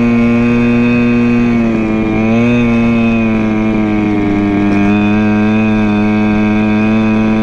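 Go-Ped stand-up scooter's small two-stroke engine running steadily at high speed while under way. Its pitch dips and wavers briefly about two seconds in, then settles slightly lower.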